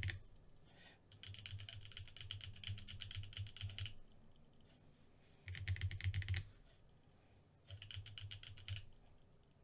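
Fast typing on a freshly built custom mechanical keyboard, in three runs of rapid key clicks. The first run is the longest, about a second in, and two shorter runs follow near the middle and near the end.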